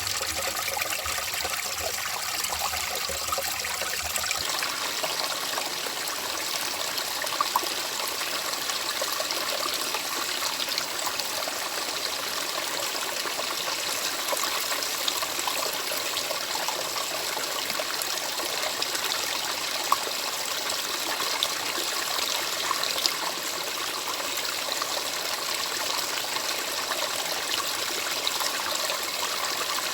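Stream water flowing and trickling steadily. A faint low rumble underneath stops about four seconds in.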